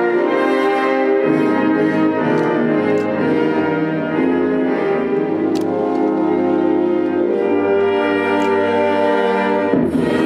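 Orchestral music with brass to the fore, playing loud held chords that shift every second or so.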